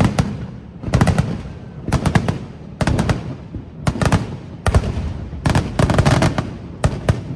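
Fireworks display: volleys of sharp aerial shell bangs about once a second, each a quick cluster of several cracks with a low rumbling tail.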